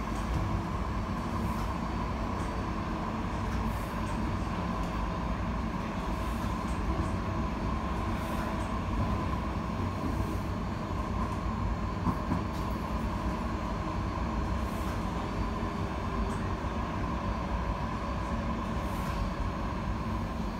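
Cologne KVB Stadtbahn tram running between stops, heard from inside the car: a steady rumble of wheels on rail with a continuous high whine and a few faint clicks.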